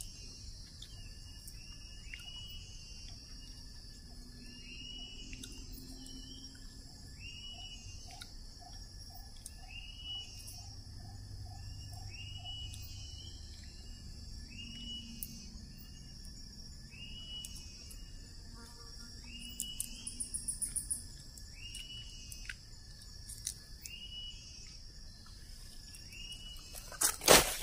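Tropical forest ambience: insects droning steadily at a high pitch while one animal repeats a short rising call every second and a half to two seconds. Near the end, loud rustling and crackling of dry leaves and twigs as someone gets up and moves on the trail.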